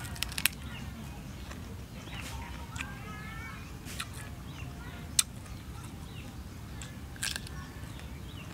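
A person eating mango up close: sharp bites and smacking mouth clicks, the loudest about five seconds in, over a steady low rumble, with birds chirping in the background.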